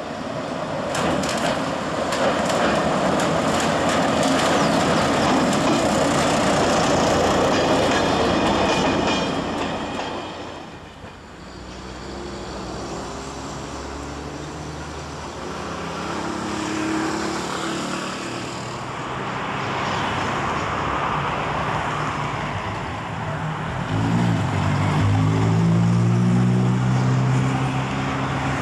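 Diesel railcar passing over a steel girder bridge, a loud steady rumble of wheels on rails with a few clacks near the start. After a short dip the sound changes to an engine's steady drone, and an engine revs up with rising pitch near the end.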